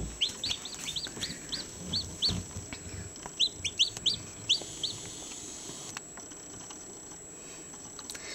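Newly hatched domestic chicken chicks peeping: a run of short, high peeps, about two or three a second, that stops about five seconds in. A faint steady high whine runs underneath.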